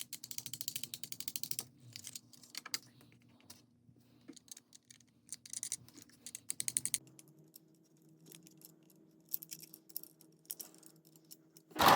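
Faint, rapid mechanical clicking, about ten clicks a second for the first second and a half, then scattered clicks and short clusters of clicks.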